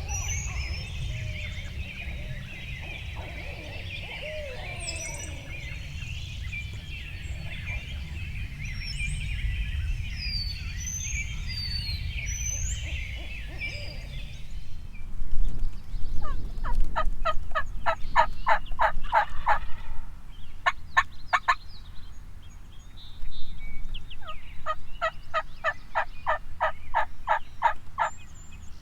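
Wind rumbling on the microphone with small birds chirping, then, from about halfway, three runs of loud, evenly spaced turkey yelps at about four a second.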